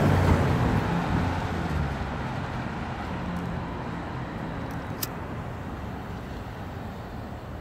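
Steady background road traffic noise, slowly fading, with one sharp click about five seconds in.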